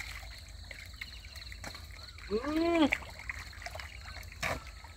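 Hands splashing and squelching in shallow muddy pond water while fish are groped for by hand. About halfway through comes one short drawn-out vocal exclamation that rises and falls in pitch.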